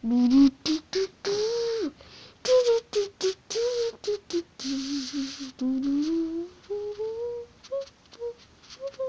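A single voice performing a wordless a cappella song: short hummed and sung notes that slide up and down in pitch, mixed with breathy hissing beatbox sounds. The hissing is mostly in the first half, and the notes grow shorter and choppier near the end.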